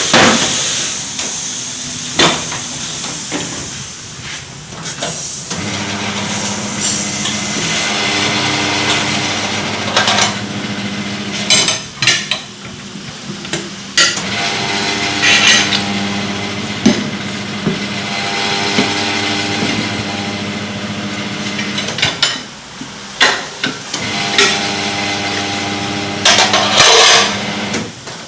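Tyre being changed on a car wheel. A tyre-changing machine's motor hums steadily through the middle of the stretch, with repeated metal clanks and knocks from the tyre work. Short hisses of compressed air come near the start, midway and near the end.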